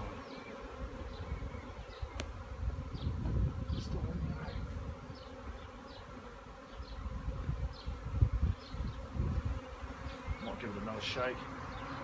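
A honey bee swarm buzzing, many bees in flight around a swarm-catching box and a tree, a steady drone. A low thump comes about eight seconds in.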